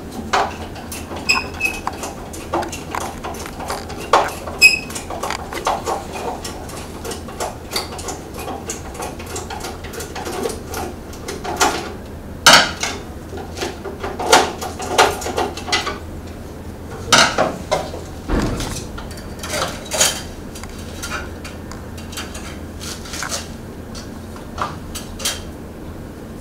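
Irregular metallic clinks, taps and knocks of hand tools and the band saw's metal parts being handled while its blade tracking is adjusted, the loudest about halfway through, over a faint steady low hum.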